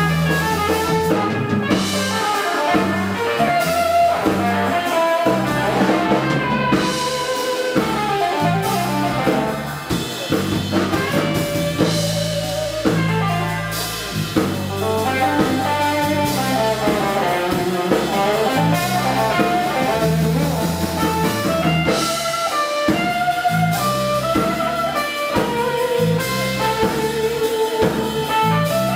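Live blues trio playing an instrumental: a Les Paul-style electric guitar plays melodic lead lines over electric bass and a drum kit, without vocals.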